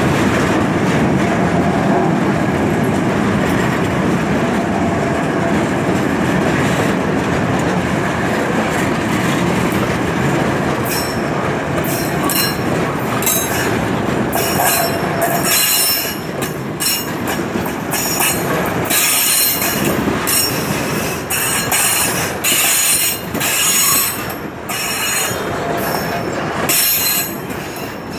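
Freight train of tank wagons rolling past close by, with a steady rumble of steel wheels on the rails. From about eleven seconds in, high-pitched metallic squeals from the wheels come and go repeatedly over the rumble.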